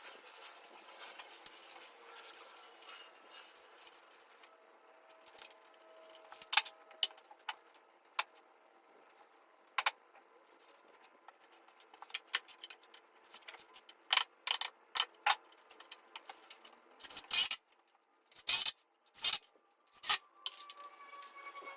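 Scattered sharp clicks and metallic clatters of tools and screws being handled while the back piece of a wooden bench is fastened. The clicks grow more frequent toward the end, with four louder short knocks about two-thirds of the way through.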